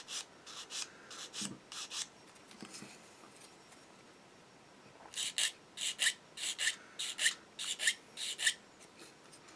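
800-grit sanding stick rubbed in short back-and-forth strokes over an injection-moulded plastic kit fuselage half, smoothing away sprue-gate nubs and scratch marks. A few strokes at first, a pause, then a run of about a dozen quicker strokes, about three a second.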